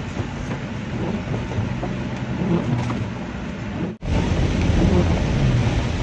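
Steady car-cabin noise: a low engine and road rumble with a hiss. It drops out sharply about four seconds in and comes back louder.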